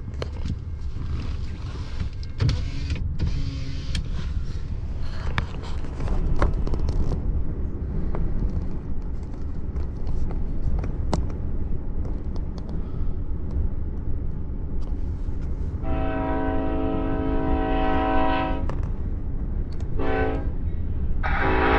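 Approaching Norfolk Southern diesel locomotive's air horn sounding the grade-crossing signal: a long blast of about three seconds, a short blast, then another long blast that is still going at the end, each a chord of several notes. A steady low rumble runs underneath throughout.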